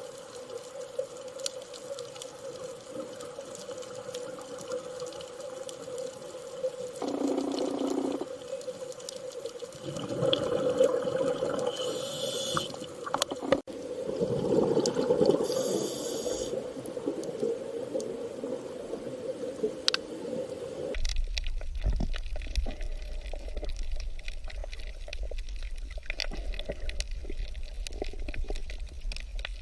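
Underwater-style water ambience: bubbling and gurgling over a steady low hum, with louder swells. About two-thirds of the way through it cuts to a deeper rumble with bubbling.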